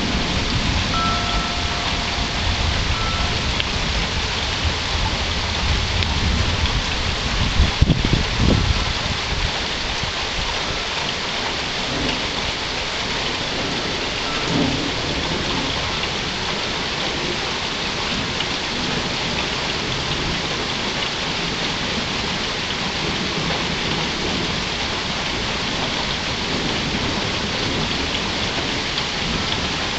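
Steady rain falling, with thunder rumbling low through the first several seconds, loudest about eight seconds in, then fading to the rain alone.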